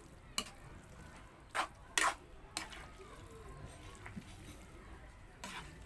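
A wooden spatula tossing saucy spaghetti in a metal wok, with about five short scrapes and knocks against the pan, the loudest about two seconds in.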